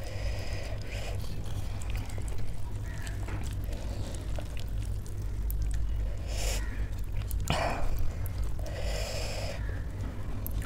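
Close-miked eating of spicy instant noodles: soft chewing, with a few short, loud sucking sounds between bites, the loudest about six to nine seconds in.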